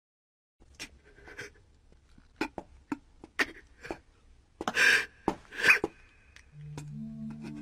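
Animated character sobbing in short, irregular gasps and sharp breaths, loudest about five seconds in. Soft sustained music comes in near the end.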